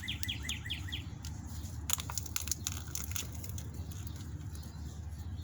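A songbird sings a fast trill of repeated down-slurred chirps, about five a second, which stops about a second in. After that come scattered crackles and clicks over a steady low wind rumble on the microphone.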